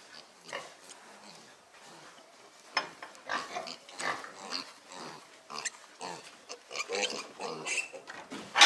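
Two young piglets squealing over and over as they are carried dangling by hand, the calls growing louder about three seconds in and loudest near the end.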